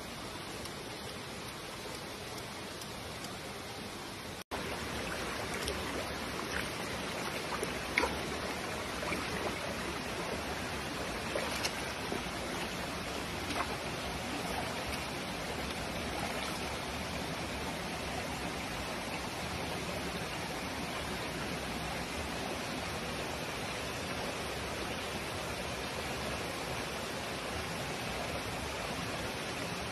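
Stream of water rushing over rocks as a steady noise. It cuts out for an instant about four seconds in and comes back louder, with a few short sharp sounds over it.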